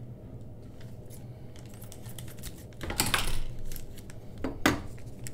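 Thin clear plastic coin bag crinkling as a one-ounce silver coin is pulled out of it. The crinkling swells into a loud burst about three seconds in, and a sharp crackle follows near the end.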